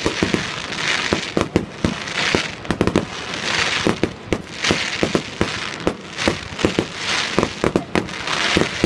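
Fireworks display: a rapid barrage of sharp bangs, several a second, with swells of crackling hiss about once a second between them.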